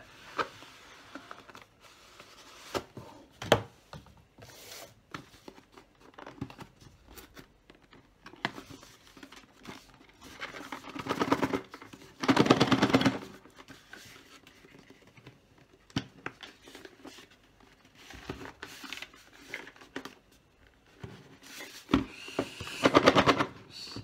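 Cardboard packaging being handled: the inner box slid out of its sleeve and turned over, with scattered taps and knocks and two longer stretches of rapid rasping scraping, one about halfway through and one near the end.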